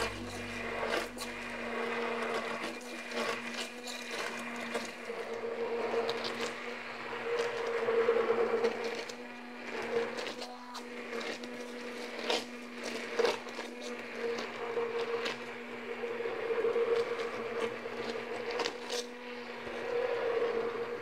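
Hand-held immersion blender running in a pot of milky sauce: a steady motor hum that swells and eases as the blade head is moved through the liquid, with occasional light knocks.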